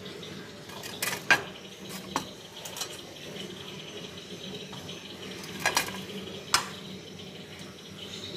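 A few sharp, separate clinks and knocks of kitchenware, about five over several seconds, over a steady low background hum.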